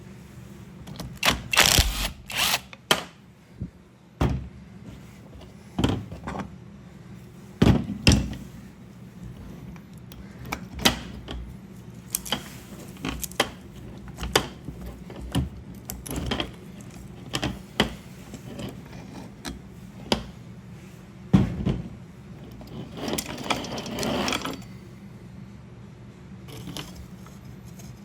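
Irregular knocks, clicks and clinks of hand tools and small parts being handled while a Stihl 020 chainsaw is taken apart, with a brief scraping rustle a few seconds before the end.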